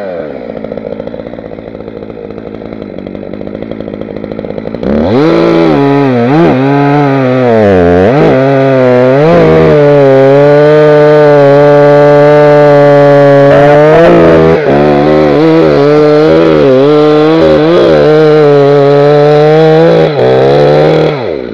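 Holzfforma G366 two-stroke chainsaw, fitted with a standard 15-inch bar and MS361 chain, idling for about five seconds, then revved up and cutting through a log. Its pitch dips and recovers several times under load, holds steady through the long cut, then drops off near the end.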